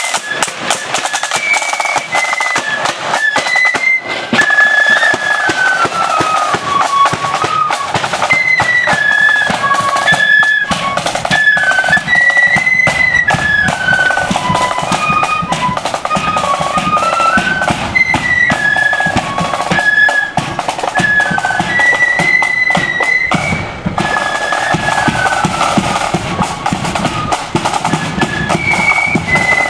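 Marching flute band playing a tune: massed flutes carry the melody over snare drums and a bass drum beating time.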